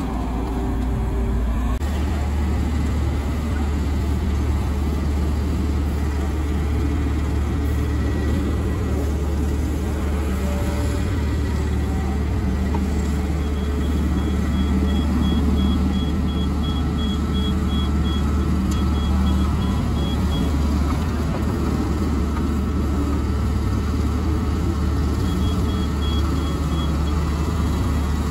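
Sumitomo HA45W asphalt finisher's diesel engine running steadily, its note changing slightly about two seconds in. A rapid high-pitched beeping comes and goes in the second half.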